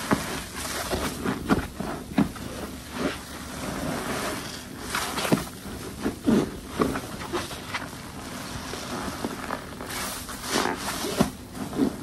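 Detergent-soaked sponge squeezed and squished by hand, giving irregular wet, soapy squelches of varying loudness.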